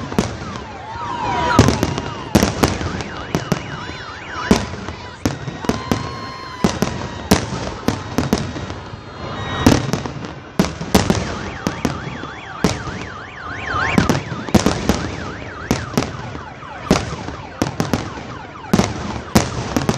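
Fireworks display: many shells bursting one after another in an irregular, rapid barrage, mixed with whistling tones and a rising-and-falling warbling wail.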